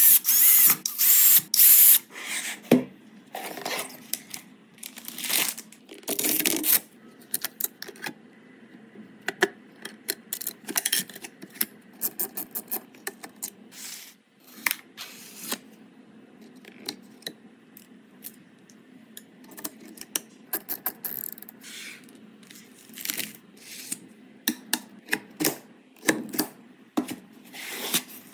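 Computer parts being handled and fitted by hand: irregular sharp clicks, taps and knocks of plastic and metal, with short rustling or scraping bursts, loudest in the first few seconds.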